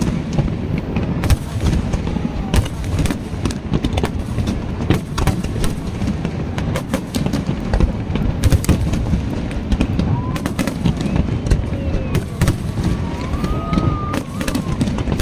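Fireworks display: many sharp bangs and crackles in quick, irregular succession over a continuous low rumble, with crowd voices underneath.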